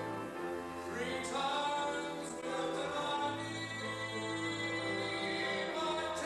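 A man singing with instrumental accompaniment. He holds long notes with a slight waver, moving to new notes about a second in and again past three seconds.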